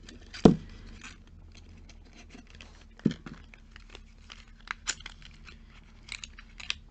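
Small cardboard boxes of nail polish being handled: scattered rustling and clicks, with two louder knocks, the first about half a second in and the loudest, the second about three seconds in.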